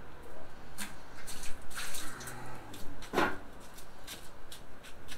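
Brine dripping and splattering off a raw brined chicken as it is lifted and handled, a run of short wet splashes and clicks with one louder one about three seconds in.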